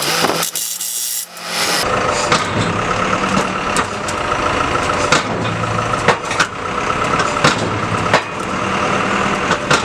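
A power drill driving the bolts of the upper mold for a few seconds. Then, from about two seconds in, the QT4-18 concrete block machine runs with a steady motor hum and irregular knocks and clicks as the newly fitted mold is trial-run and adjusted.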